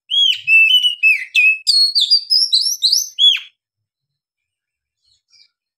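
Oriental magpie-robin singing a loud run of varied whistled notes: quick rising and falling slurs and short trills for about three and a half seconds. The run ends on a sharp downslurred note and is followed by one faint note.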